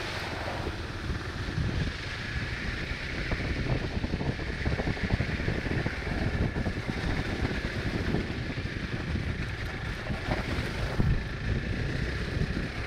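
Hero Xpulse 200 motorcycle's single-cylinder engine running as it rides a rough off-road trail, the sound uneven with small jolts from the bumpy ground, with wind buffeting the microphone.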